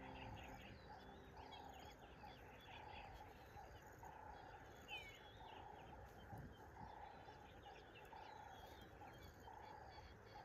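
Faint wild birdsong: many short chirps and calls, with a lower note repeating about once a second, over a faint steady hiss.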